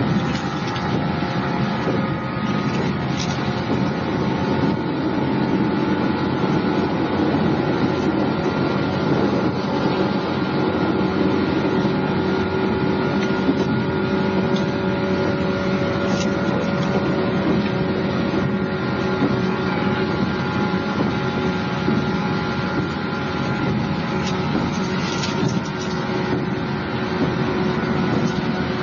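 Inside the cabin of a 165-series electric train running at a steady speed: a constant rumble of wheels and running gear, with a steady motor and gear whine made up of several tones. A few faint clicks come through, and cassette tape hiss sits underneath.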